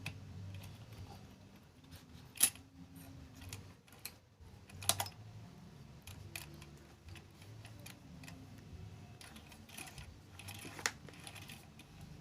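Scattered small metal clicks and taps as sewing machine parts are handled and adjusted by hand during a repair. Three sharp, louder clicks stand out: one about two and a half seconds in, one about five seconds in, and one near the end.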